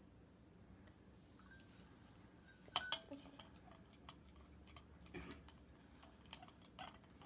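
A spoon clinking and tapping against a mixing bowl while stirring glue and borax solution: a series of irregular light knocks, the loudest about three seconds in.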